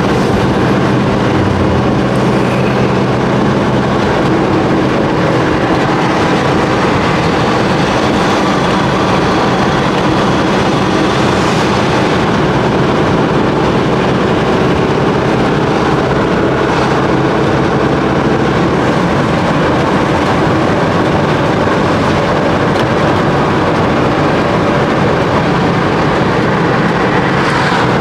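Motorhome on the move, heard from inside the cab: a steady engine drone under continuous road and tyre noise.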